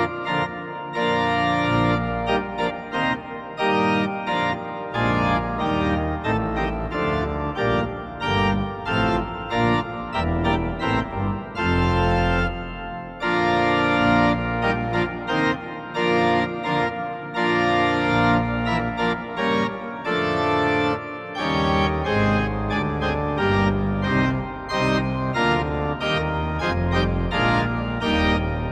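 Instrumental music led by an organ, with held chords and melody notes changing one after another.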